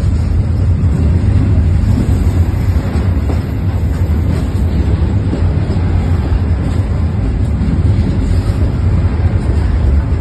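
A freight train of open-top wagons rolling past at close range: a steady, loud rumble of wheels on the rails, with wind buffeting the microphone.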